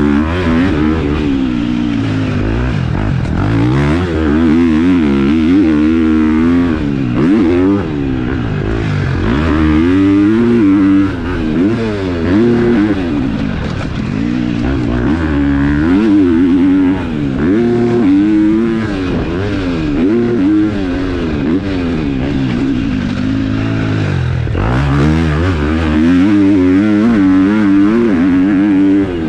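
KTM four-stroke motocross bike with a Yoshimura aftermarket exhaust being ridden hard, its engine revving up and falling back again and again, every second or two.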